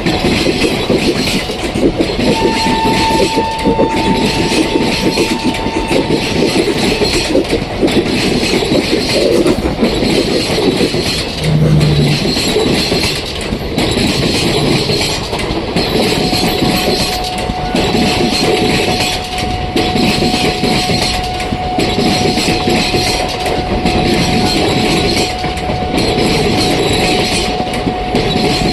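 Passenger express train running past at speed, its wheels clacking over the rail joints in a steady rhythm, with a thin steady squeal-like tone from about the middle on.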